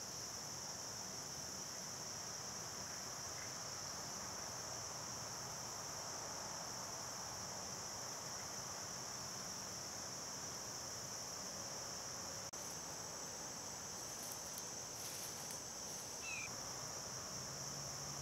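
Steady chorus of crickets, one continuous high-pitched trill, with a faint click about twelve seconds in and a brief chirp near the end.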